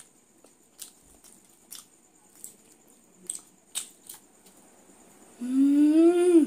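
A child chewing food: scattered wet mouth clicks and smacks about every half second, then a hummed 'mmm' of relish, rising a little in pitch, for about a second near the end.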